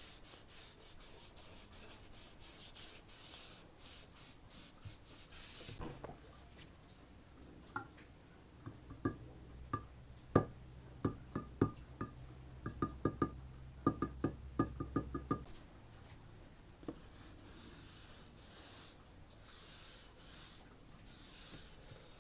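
A rag wiping oil into a wooden axe handle in soft, quick strokes. From about eight seconds in, a copper thumb-pump oil can clicks sharply and rapidly for several seconds as it squirts linseed oil onto the handle, and then the wiping starts again.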